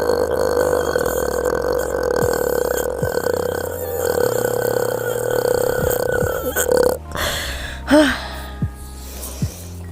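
A woman's very long, sustained burp, a steady drone, stops sharply about seven seconds in at the end of a timed attempt lasting about a minute. A few short rising pitched sounds follow.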